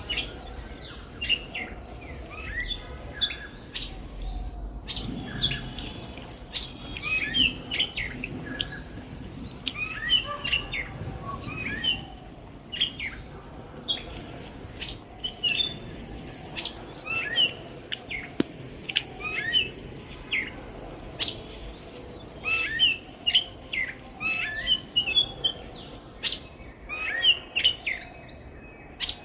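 Songbirds chirping and singing in short, repeated phrases, several calls overlapping, with an occasional sharp click.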